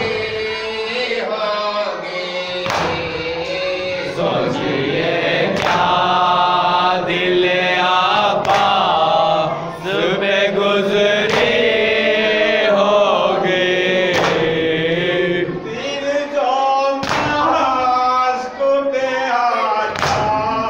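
Men's voices chanting a noha, an Urdu lament, together in a slow melodic line, over sharp strikes of chest-beating (matam) falling at a steady beat about every second and a half.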